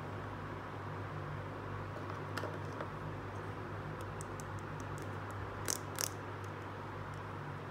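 Light plastic clicks and taps from a toy plastic pill blister pack being handled in the fingers, with two sharper clicks close together about two-thirds of the way through. A steady low hum runs underneath.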